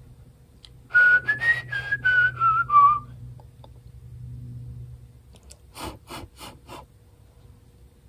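A person whistling a short tune of about seven notes that climb, then step down. Four quick taps follow a few seconds later.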